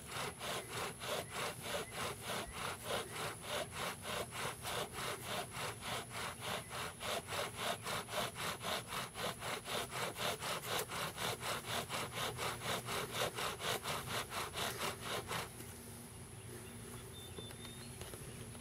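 Bow drill fire-starting: a wooden spindle grinding in a wooden fireboard, driven by quick back-and-forth bow strokes, a rasping rub about three times a second that stops abruptly about fifteen seconds in. The friction is grinding dark char dust from the board toward an ember.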